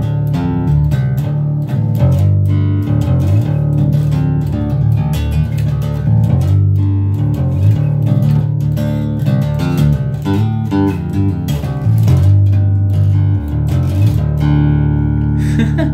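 Jackson JS1M concert electric bass, tuned to drop D, played through a Fender Rumble 25 V3 combo amp's 8-inch speaker: a busy riff of plucked low notes that settles into a held, ringing note near the end.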